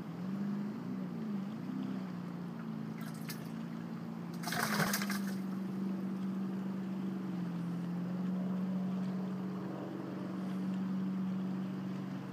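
A boat motor running at a steady low speed, a constant hum that wavers slightly in pitch at first, with water moving past. A short burst of noise about four and a half seconds in.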